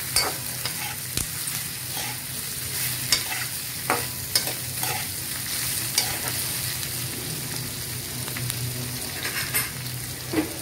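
Sliced bell peppers and onions sizzling in hot oil in an aluminium kadhai, stirred with a metal spoon that scrapes and clicks against the pan at irregular moments.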